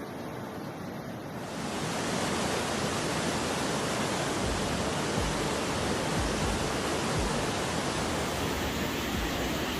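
Steady rushing roar of storm water, growing louder about a second and a half in, with low rumbles of wind buffeting the microphone.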